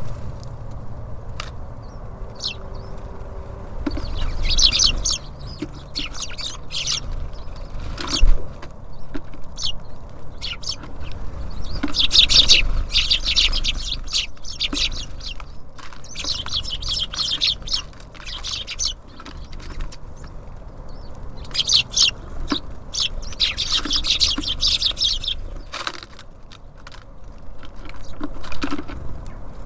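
Small songbirds at a bird feeder chirping in several dense bursts, with sharp taps and clicks between them, over a steady low rumble.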